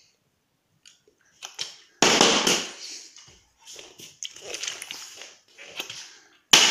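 A partly filled plastic water bottle thrown in a bottle flip, hitting and clattering on a hard floor: one loud thud about two seconds in that fades over a second, smaller knocks and rattles after it, and another sharp knock near the end.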